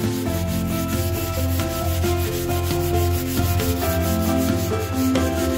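Hand-held sanding pad rubbed back and forth over dry stencilled plaster on a wall, smoothing the raised plaster ornaments.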